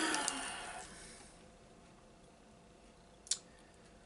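Mostly quiet room tone. A short vocal sound from a man trails off in the first second, then a plastic snack packet being handled gives one sharp crinkle about three seconds in.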